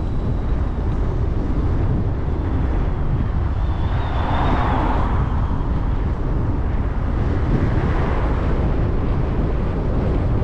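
Steady wind and road rumble on a bicycle-mounted camera while riding. A car approaches in the opposite lane and swells past in the second half.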